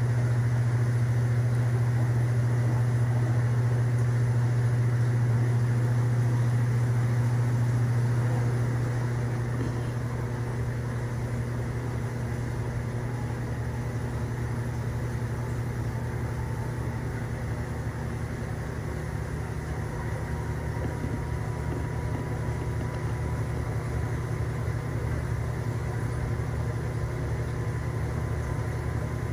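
Steady low hum of reef aquarium equipment running, with a faint whine above it; a little louder for the first eight seconds, then slightly softer.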